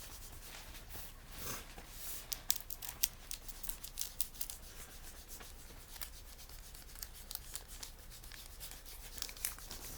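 Foil wrapper of a Pokémon booster pack being opened and handled, crinkling and crackling, with a dense run of sharp crackles about two to four seconds in.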